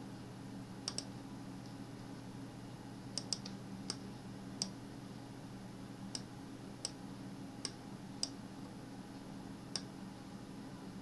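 Computer mouse buttons clicking: about a dozen short sharp clicks, irregularly spaced, some in quick pairs, over a steady low hum.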